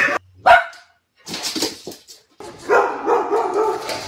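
A dog barking: one short, loud bark about half a second in, then a longer run of barking from a little under three seconds in.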